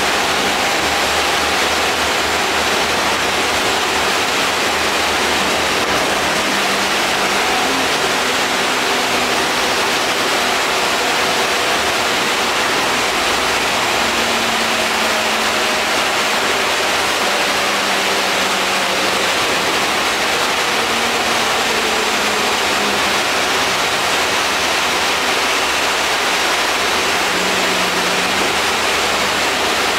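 Inside the lower deck of an Alexander Dennis Enviro400 double-decker bus on the move: a steady, loud rush of air conditioning over the engine's drone, whose pitch shifts slowly as the bus drives.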